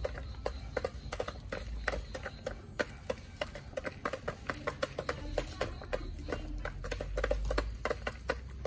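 Chickens pecking at feed around a plastic feeder: a quick, irregular run of sharp taps, several a second.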